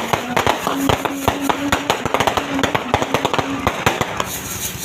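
Many firecrackers and fireworks popping in rapid, irregular succession, a near-continuous crackle of sharp bangs that thins a little near the end.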